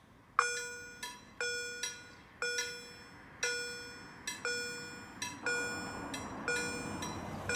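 Polish level-crossing warning bell (KLD-40 with EHL-S10) starts ringing about half a second in, with a sharp ringing strike about once a second and a softer stroke between each. This is the crossing's alarm for an approaching train. A low rumble rises underneath near the end.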